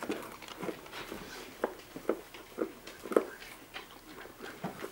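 Border collie giving a run of short, soft whines, about two a second, as a dog begging for food does.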